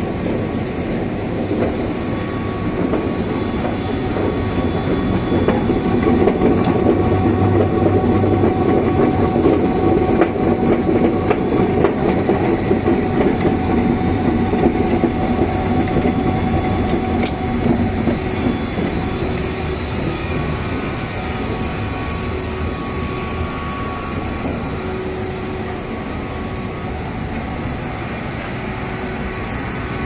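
Machinery of a running rotary continuous drum charcoal pyrolysis plant: a steady, dense mechanical rumble and rattle, louder in the first half.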